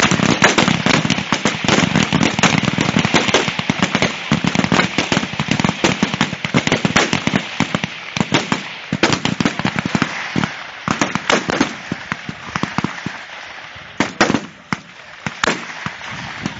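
Many rifles firing along a firing line, the shots overlapping into a dense crackle at first, then thinning to separate cracks near the end.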